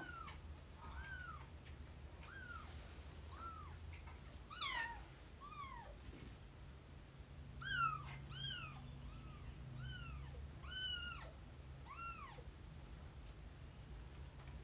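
Kitten mewing over and over: about a dozen short, high-pitched mews, each rising and then falling in pitch, roughly one a second, a little louder in the middle of the stretch.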